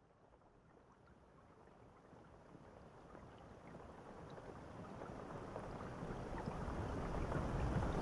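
Shower spray falling onto a tiled shower tray: a steady hiss of running water, fading in and growing steadily louder.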